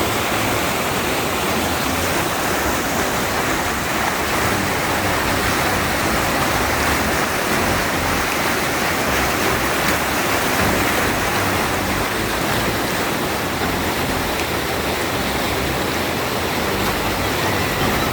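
Steady rush of fast-moving floodwater in a swollen creek.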